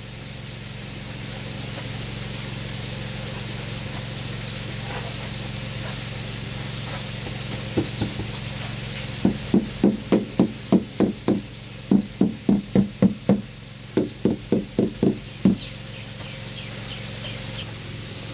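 Rubber mallet tapping a large mortar-backed ceramic tile into place against a concrete counter face. A couple of dull knocks come about eight seconds in, then about two dozen more in three quick runs, over a steady low hum.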